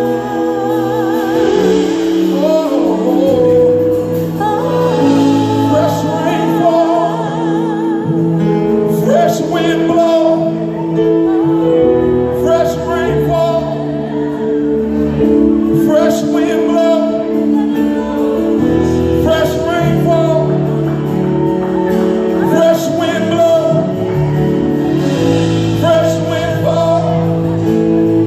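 Live gospel worship singing by a group of male and female voices into microphones, over a steady instrumental accompaniment of sustained low chords.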